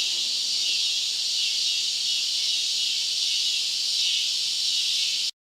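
Crickets chirping in a dense, steady, high-pitched chorus, used as a sound effect for a quiet scene. It cuts off suddenly about five seconds in.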